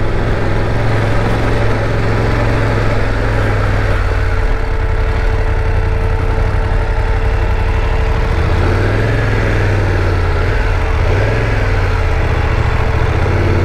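BMW GS adventure motorcycle engine running steadily at low revs while the bike rolls slowly, with a faint steady whine above the low engine hum.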